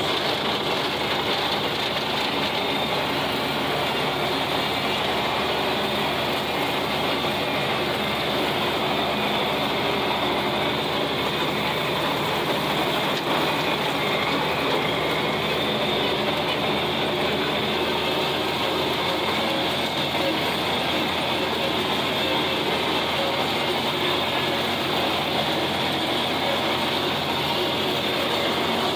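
John Deere 4020 tractor's six-cylinder engine running steadily under load, mixed with the drone of the 1408 rotary cutter (brush hog) mowing grass behind it.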